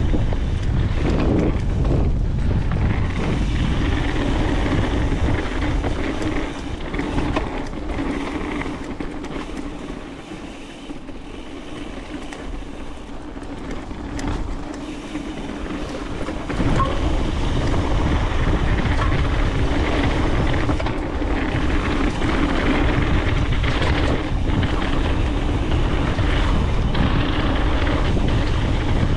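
Mountain bike riding fast down a dirt trail: wind rushing over the camera microphone and tyres rolling over the ground, with scattered knocks and rattles from the bike. It quietens for several seconds around the middle, then grows loud again.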